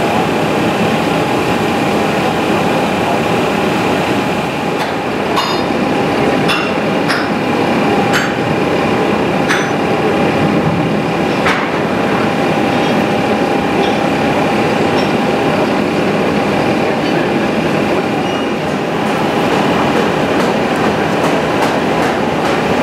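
Bell-bronze melting furnace and its air blower running: a steady rushing noise with a faint steady whine. A handful of sharp knocks stand out between about five and twelve seconds in.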